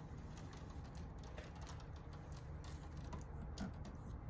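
Light, scattered clicks and ticks from wires and hardware being handled inside an electrical panel, over a steady low hum.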